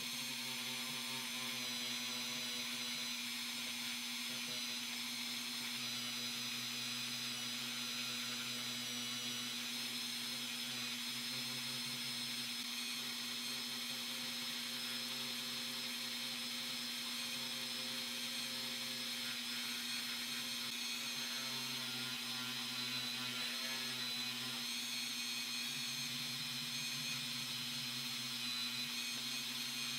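Handheld rotary tool spinning a brass wire wheel against a bare die-cast zinc car body, running at a steady speed with an even motor whine. It is brushing tarnish (toning) off the zinc.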